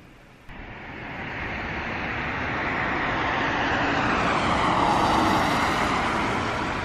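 Jet airliner flying past overhead: a broad rushing engine noise that begins about half a second in, swells steadily to its loudest around five seconds in, then starts to ease.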